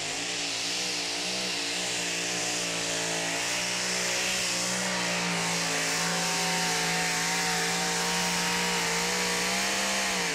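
Modified two-wheel-drive pulling truck engine running at full power as it drags the sled, with a loud high rushing noise over it. The pitch wavers for the first few seconds, then holds steady and edges up before the sound stops abruptly near the end.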